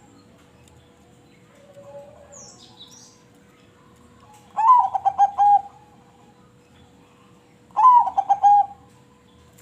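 Zebra dove (perkutut) cooing: two phrases a few seconds apart, each a rising opening note followed by a quick run of short coos.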